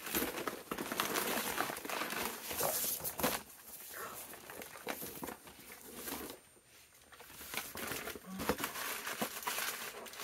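Wrapping being crumpled and rustled by hand as items are unwrapped, in irregular crackling handfuls; it dies down briefly past the middle, then resumes.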